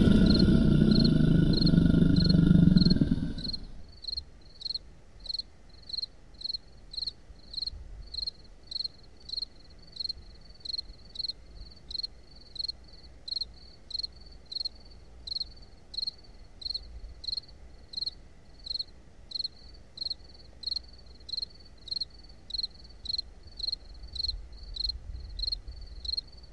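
Loud music dies away in the first few seconds, leaving a cricket chirping at an even pace, about three chirps every two seconds, over a faint low rumble.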